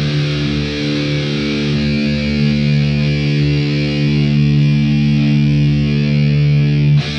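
Background music: a distorted electric guitar holds one long sustained chord, then breaks into a choppier rhythm right at the end.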